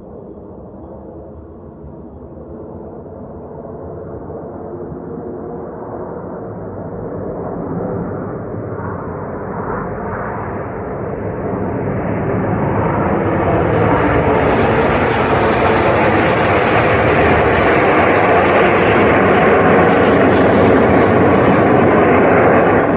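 Jet engine noise from the Red Arrows' BAE Hawk jets, swelling steadily louder and higher as the aircraft close in, then cutting off suddenly at the end.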